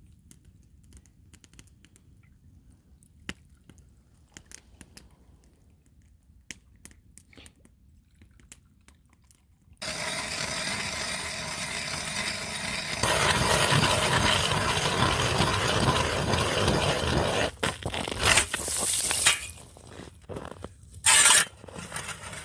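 Ice auger boring through thick river ice: faint scrapes and clicks at first, then about ten seconds in a loud grinding crunch starts abruptly, gets louder a few seconds later and breaks off near the end.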